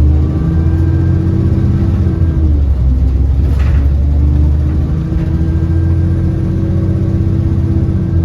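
Enviro400 double-decker bus heard from inside, its engine droning under a steady whine, the 'Hoover' noise this bus is known for. The pitch dips about two and a half seconds in, then climbs back as the bus pulls on. A brief hiss comes at about three and a half seconds.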